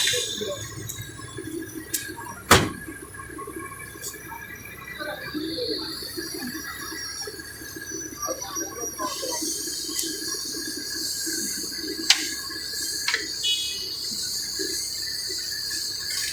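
Busy street-stall background noise with a steady hiss and indistinct distant chatter, broken by two sharp knocks, one about two and a half seconds in and one about twelve seconds in.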